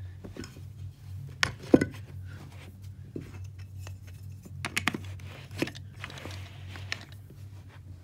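Wooden toy train track pieces being handled and fitted together: scattered wooden knocks and clicks, the loudest a couple of seconds in, over a steady low hum.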